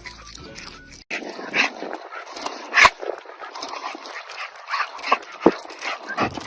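A dog giving short whimpers and yips, a string of brief high cries with a few sharper ones.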